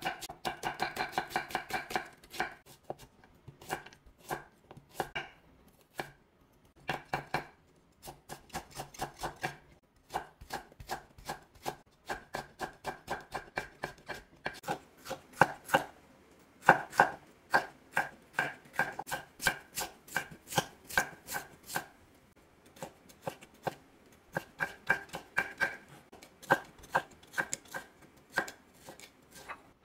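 Chef's knife chopping on a wooden cutting board, julienning onion, carrot and red bell pepper into thin strips. Quick, even strokes of several a second, in runs broken by short pauses.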